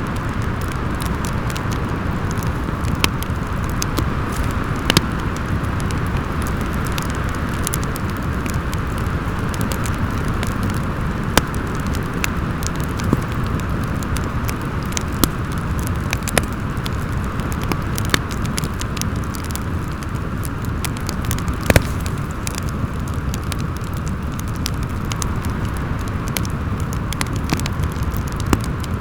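Wood fire crackling in a fireplace, with scattered sharp pops, over a steady low rumble and howl of wind. Two pops stand out, about five seconds in and about twenty-two seconds in.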